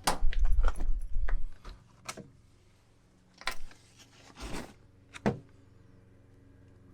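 Seat belt hardware being handled: a quick run of clicks and knocks with some low rumble over the first second and a half, then a few separate clicks spaced about a second apart.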